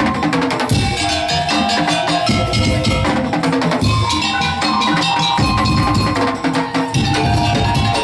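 Madurese musik daul (tong-tong) ensemble playing: dense, fast drumming and wooden knocking strikes under a held melody line.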